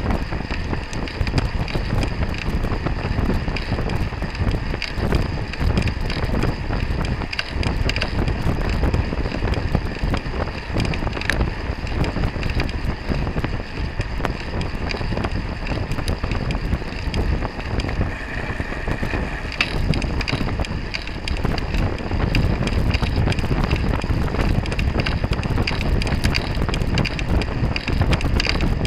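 Steady wind rush on the microphone of a camera mounted on a racing bicycle moving at race speed, mixed with the bicycle's rolling road noise.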